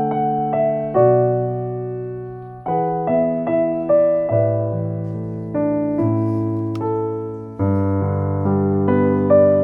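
Background music: a gentle piano piece, soft chords and a melody played at a slow, even pace.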